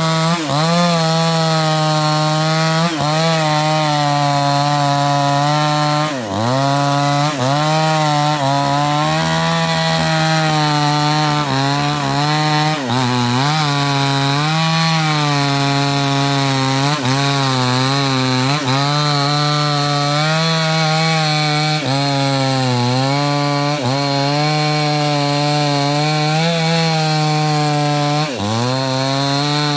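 New West 628 two-stroke chainsaw with a 24-inch bar running at high revs while cutting into the base of a thick sengon trunk. The engine pitch dips and recovers over and over as the chain bogs under load, most deeply about six, thirteen and twenty-eight seconds in.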